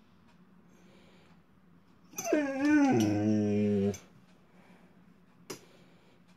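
A dog whining once to beg for food at the table: a drawn-out whine of about two seconds that wavers up and down, then drops into a low grumble. A faint click near the end.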